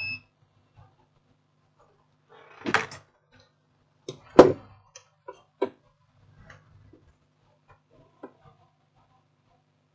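Scattered knocks and clicks of tools and parts handled on a workbench: a cluster about three seconds in, the loudest knock about four and a half seconds in, then lighter ticks. A steady electronic beep, typical of a multimeter's continuity test, cuts off right at the start.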